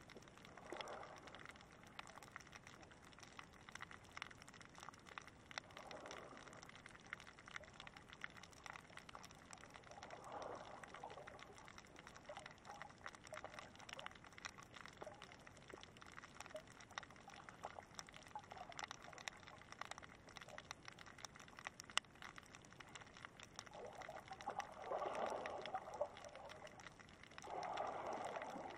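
Faint underwater ambience of shallow water heard by a submerged camera: a constant crackle of small clicks, with muffled swells of water movement every few seconds that grow stronger near the end.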